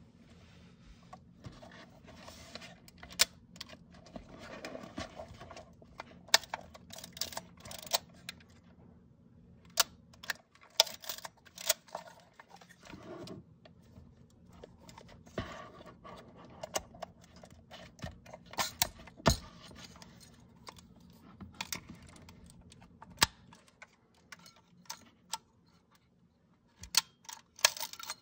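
Handling noise from a Yashica Electro 35 GS rangefinder camera as it is turned over in the hands and its back door is opened: scattered sharp clicks and knocks from the metal body, with soft rustling in between.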